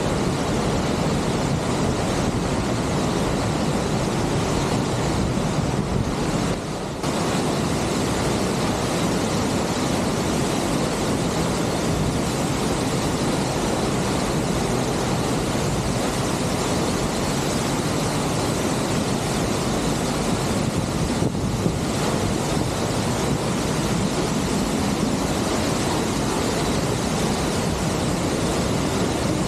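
Waterfall pouring close by: a loud, steady rush of falling water, with one brief dip about seven seconds in.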